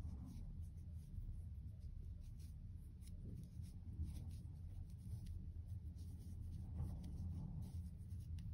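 Faint rustling and rubbing of cotton yarn as a crocheted strip is rolled up tightly between the fingers into a rose, over a low steady hum.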